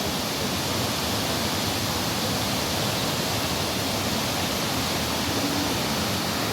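Agnes Falls waterfall: a steady, even rush of falling water.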